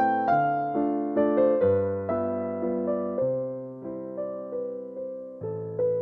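Background music: a slow, gentle piano tune, its notes struck and fading away, with the chord changing about once a second.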